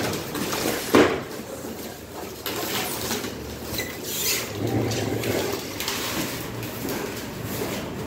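A large refrigerator being rocked and shifted across a tiled floor by hand, its base scraping and bumping, with a sharp knock about a second in.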